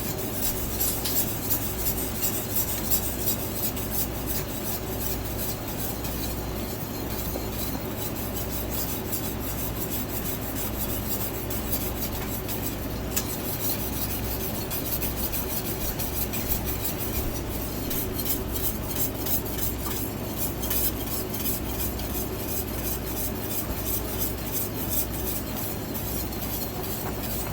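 Continuous stirring in a pot of sugary cough syrup, with a utensil scraping and rasping against the pan bottom over a steady low hum, as the syrup is brought up to a rolling boil.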